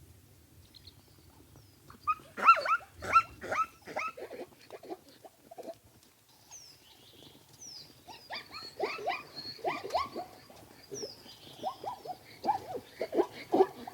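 Zebra barking calls: two series of quick yelping barks, each bark falling in pitch. The first series starts about two seconds in and the second starts about eight seconds in. Faint high chirps sound over the second series.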